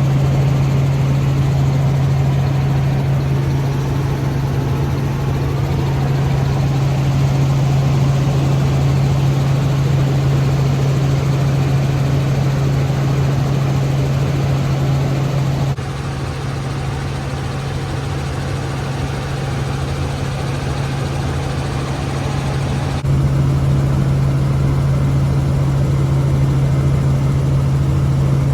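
Helicopter cabin noise in flight: a steady engine and rotor drone with a strong low hum. It drops abruptly to a slightly quieter level about halfway through and jumps back up a few seconds before the end.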